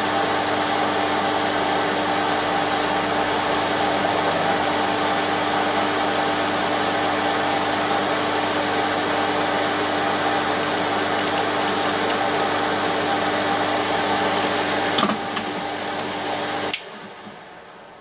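Soldering fume extractor fan running steadily with a whirring hum. A sharp click comes about fifteen seconds in, and the fan cuts off abruptly a second before the end.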